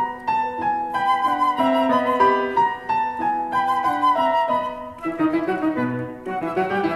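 Instrumental music: a melody of clear held notes that changes pitch every fraction of a second, over a softer accompaniment.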